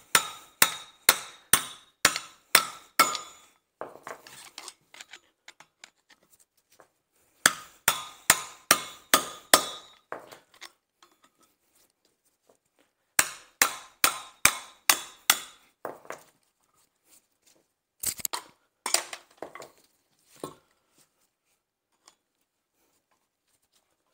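Hammer blows on a steel driver wedged between a Ford Transit rear hub and brake disc, knocking the hub out of the disc. Each blow rings metallically. The blows come in quick runs of about three a second with pauses between, and end in a few single blows near the end.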